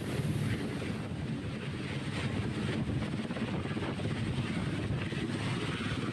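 Helicopter running: a steady low rumble of rotor and engine.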